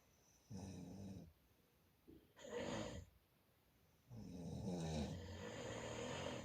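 Snoring: three snores with short pauses between them, the last and longest lasting about two seconds with a wavering pitch.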